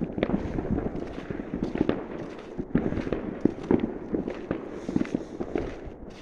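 Many fireworks and firecrackers going off at once, a dense, irregular crackle of pops and bangs over a low rumble.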